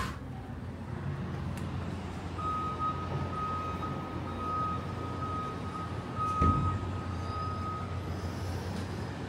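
A reversing alarm beeps with a steady, evenly pulsing high tone for about five seconds over a constant low rumble. A single thump comes about six and a half seconds in.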